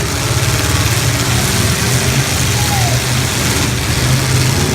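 Engines of full-size demolition derby cars running, a steady loud drone with some revving.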